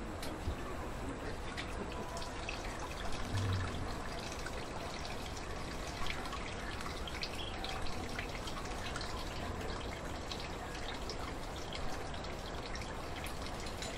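Manioc juice trickling and dripping from a woven tipiti press into a pot as a woman bears down on its wooden lever, with a few dull knocks.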